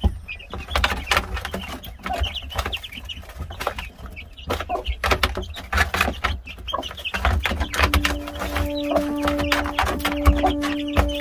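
Gamefowl chickens clucking, with many short sharp clicks and knocks among the calls. A steady low hum with two tones starts about eight seconds in.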